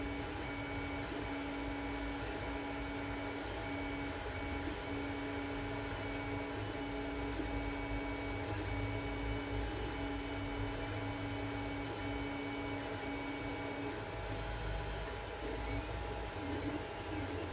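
Creality Ender 3D printer heating its extruder, with fans humming steadily. A whining tone switches on and off in short stretches and stops about fourteen seconds in.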